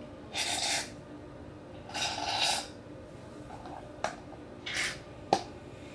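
Small squeeze bottle of store-bought slime activator solution being squirted into a plastic tub of glue: three short hissy squirts, then two sharp clicks near the end.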